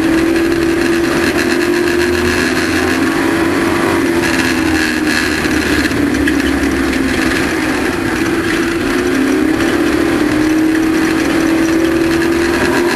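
Race truck's engine running hard and loud, its pitch dipping slightly a few seconds in and climbing again near the end.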